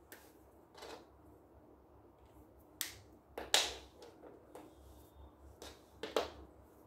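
Handling sounds of felt-tip markers and folded paper being moved about on a wooden table: a handful of short taps and rustles, the loudest about halfway through.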